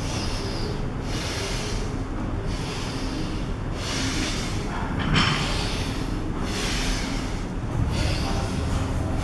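A man breathing forcefully through a set of lat pulldowns, one hissing breath about every second, over a steady low hum.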